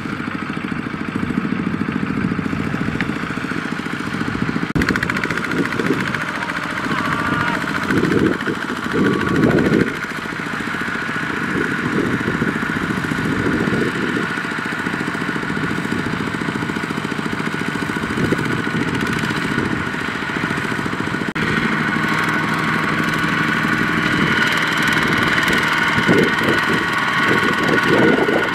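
Kubota RT120 two-wheel walking tractor's single-cylinder diesel engine running under load, pulling a trailer of rice sacks through mud. The engine note surges louder about eight to ten seconds in and again near the end.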